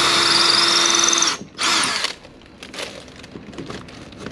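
Cordless drill boring a hole through an inflatable boat's transom. The motor runs with a steady whine for about a second and a half, stops, runs again briefly, then gives a few faint short blips.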